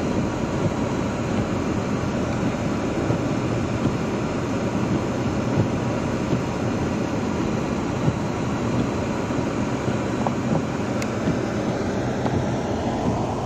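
Steady driving noise of a car, heard from inside its cabin: an even rumble of engine and tyres on a snowy road.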